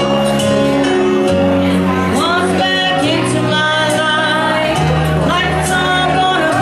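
A woman singing karaoke into a handheld microphone over a loud backing track, her amplified voice coming in clearly about two seconds in.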